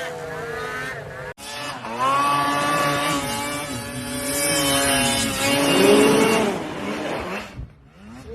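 Snowmobile engine running hard, its pitch rising and falling with the throttle. The sound breaks off sharply about a second and a half in, comes straight back, and drops away shortly before the end.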